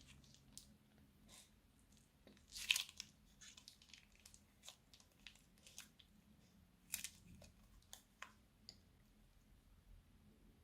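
Crunchy slime being handled and squeezed, giving scattered soft crackles and clicks, with two louder crunches, one a little under a third of the way in and one about two-thirds in.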